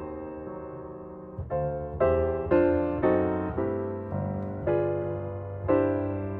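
Background piano music, with chords struck and left to fade, a new one every second or so.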